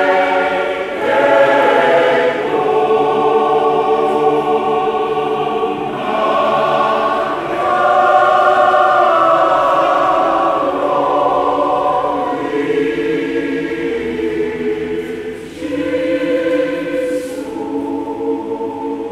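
Church choir singing a Fijian hymn in full, sustained chords that change every second or two, growing a little softer near the end.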